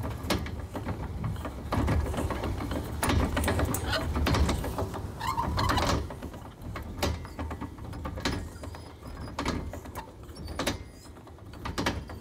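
Hand-cranked roof lift of a Forest River Flagstaff pop-up camper being wound to lower the roof: a low mechanical rumble with clicks from the crank and winch. In the second half the clicks come singly, a little over a second apart.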